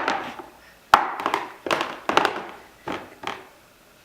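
High chair tray parts knocking and clattering as they are pulled apart and handled: a sharp knock about a second in, then a run of taps and thunks roughly every half second.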